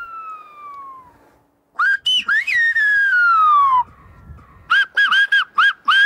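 Silbo Gomero, the whistled language, whistled loudly through the fingers. A long falling whistle fades out, then after a short pause comes a phrase that rises and dips before sliding down in a long glide. Near the end comes a run of quick, short whistled notes.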